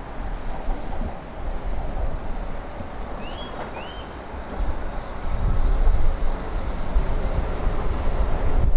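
Strong wind buffeting the microphone, with two short rising bird chirps about three and a half seconds in. The rumble of an approaching train builds through the second half.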